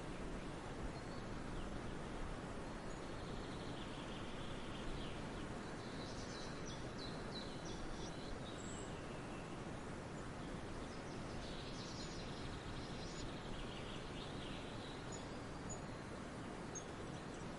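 Small birds singing in two bursts of high, twittering phrases, one about six seconds in and one about twelve seconds in, with a few short chirps near the end. Underneath is a steady outdoor background hiss.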